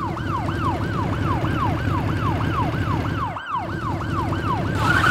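A siren with a quick, repeating falling tone, about three sweeps a second, over a low rumble. It drops out briefly about three and a half seconds in.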